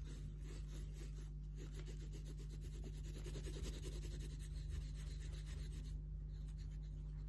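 Faint scratching of drawing on paper, continuous and uneven, over a steady low electrical hum.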